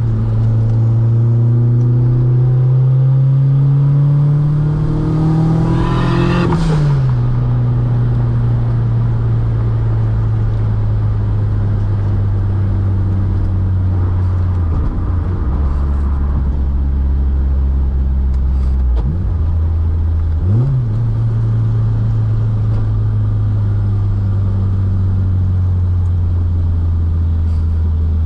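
Volkswagen Mk2 Golf GTS engine pulling through the revs for about six seconds, then dropping in pitch at a gear change and running at steady revs. Its pitch changes again briefly about halfway through and about two-thirds of the way through, then settles.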